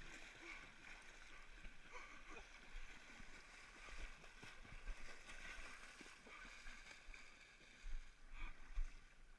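Shallow river water rushing and splashing around an inflatable floating downstream, faint and steady with small splashes throughout. There are a few louder low bumps near the end.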